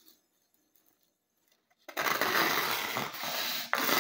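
Near silence, then about two seconds in a freshly sharpened kitchen knife starts slicing through a sheet of paper with a steady papery rasping rustle, and there is a sharp tick near the end. The knife is cutting, a test of its edge after sharpening.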